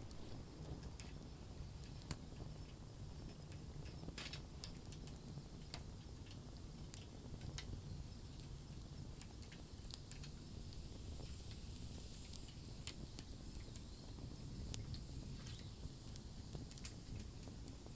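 Wood campfire crackling: irregular sharp pops and snaps scattered over a low, steady rumble.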